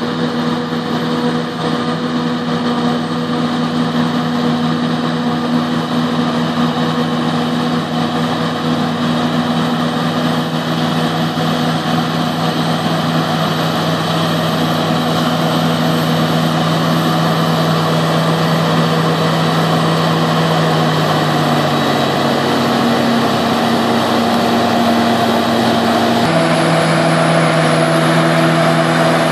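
Steady diesel drone of a forage harvester chopping maize with a John Deere tractor and silage trailer running alongside, slowly getting louder. The engine note drops in pitch about two-thirds of the way through, and the sound changes abruptly near the end, when the tractor is close.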